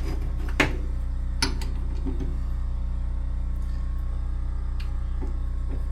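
Two sharp metallic clinks, the first and louder about half a second in, the second about a second and a half in, over a steady low machine hum.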